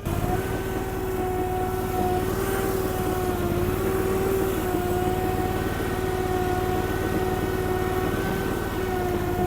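Mini skid steer engine running steadily, with a steady whine over a low rumble that dips slightly in pitch a few seconds in.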